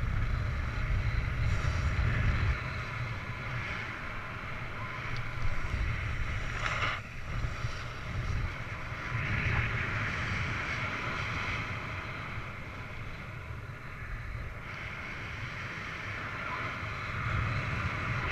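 Airflow of paraglider flight buffeting an action camera's microphone: a steady low rumble with a rushing hiss that dips briefly about seven seconds in.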